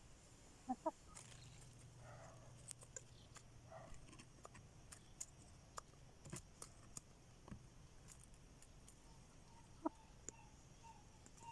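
A hen clucking softly a couple of times, about a second in and again near the end, among scattered faint ticks and rustles, all very quiet.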